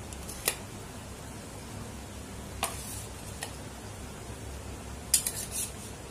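Scattered sharp clinks of steel utensils and pans as fried potato and papaya pieces are added to a kadai of boiling curry, with a quick cluster of clinks near the end, over a steady low background noise.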